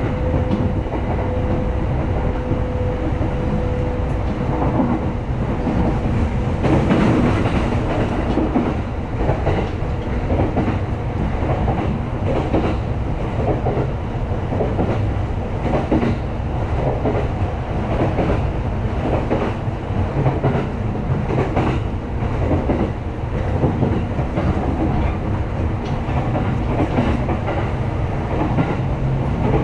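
Japanese electric commuter train running, heard from inside the carriage: a steady rumble of wheels on rails with repeated clickety-clack over the rail joints. A faint steady whine fades out about four seconds in.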